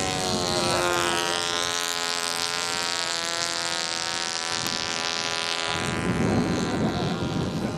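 Small radio-controlled model airplane engines buzzing overhead, the note wavering slightly in pitch. Near the end the buzz fades and a rough low rushing noise takes over.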